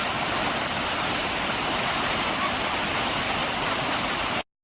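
Rushing water of a river or waterfall, a steady loud hiss that cuts off suddenly near the end.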